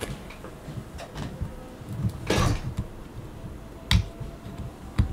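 Fingers handling a Raspberry Pi 400's plastic keyboard case and picking at the rubber cover over its GPIO pins: a brief scrape a little after two seconds in, then two sharp clicks near the end.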